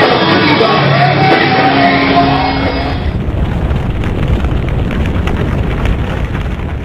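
Live church worship music, with heavy bass and drums and a voice shouting or singing over it for about the first three seconds. After that the band carries on without the voice and grows gradually quieter toward the end.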